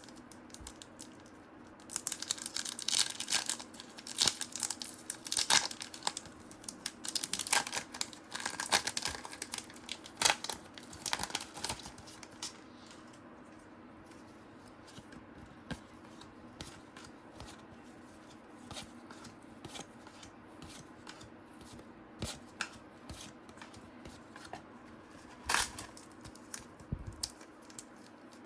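Paper and foil trading-card wrappers and cards being handled, rustling and crinkling in bursts for about ten seconds. Then comes quieter handling with scattered light taps and one sharper click near the end.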